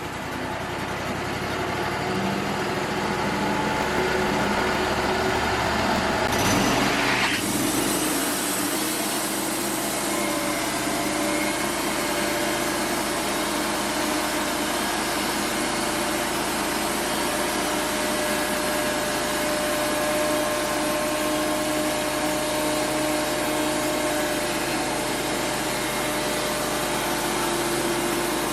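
Wood-Mizer LT35 portable band sawmill running steadily, with a clear change in its tone about seven seconds in.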